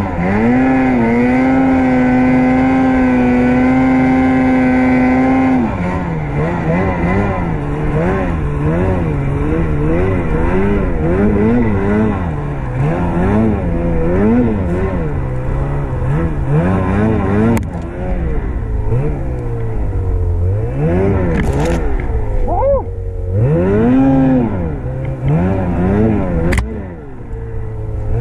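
Ski-Doo Summit 850 two-stroke snowmobile engine running at high revs, held steady for about five seconds, then revving up and down over and over as the throttle is worked through deep powder.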